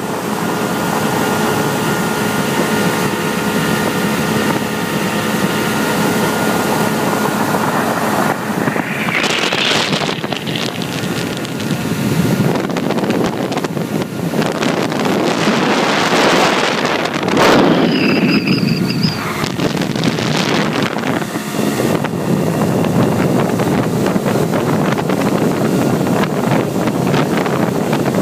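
Motorboat running at speed across open water: a steady engine hum under rushing wind and water, with gusts of wind buffeting the microphone.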